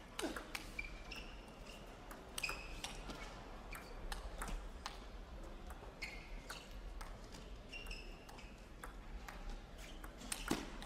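Table tennis ball in a long rally, struck by the rackets and bouncing on the table: a string of sharp clicks, many with a short high ping, each about half a second to a second apart.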